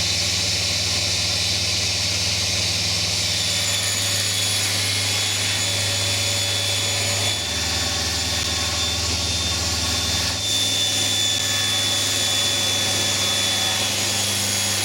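Table saw running steadily, a constant motor hum with a high whine over it, as a board is edge-jointed against a clamp-on straight edge; the sound cuts off abruptly near the end.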